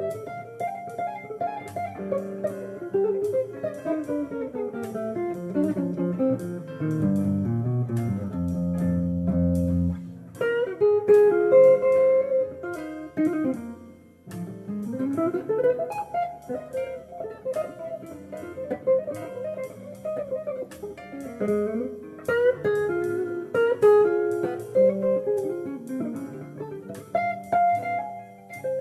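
Jazz guitar playing an instrumental solo of plucked single-note lines and chords, with long descending runs, a short pause about two-thirds of the way in, then a quick rising run.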